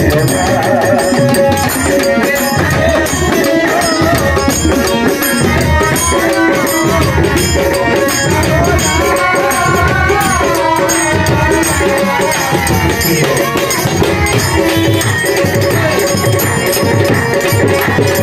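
Live Bengali Baul folk music. A harmonium holds steady tones under a melody sung by a male voice, and a percussion instrument struck with sticks keeps a continuous beat.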